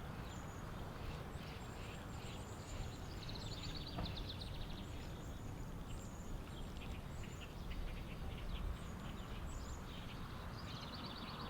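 Birds singing: short high chirps and rapid trills, one trill about three seconds in and another near the end, over a low steady rumble.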